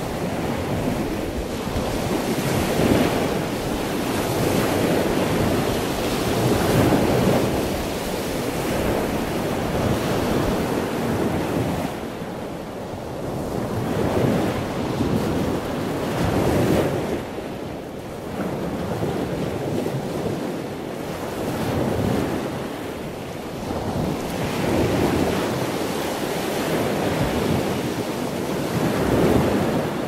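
Pacific Ocean surf washing against a rocky outcrop: a continuous rush of water that swells and eases every few seconds as each wave comes in and drains back.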